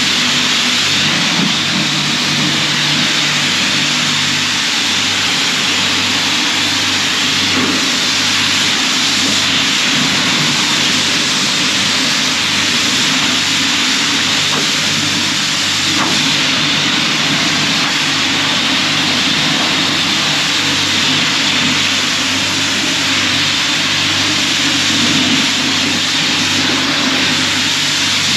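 High-pressure car wash wand spraying water onto a pickup truck's body and wheel, a steady loud hiss with a low hum underneath.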